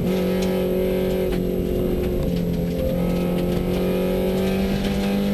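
Subaru rally car's flat-four engine heard from inside the cabin, running at a steady pitch as the car holds about 45 mph on a gravel stage.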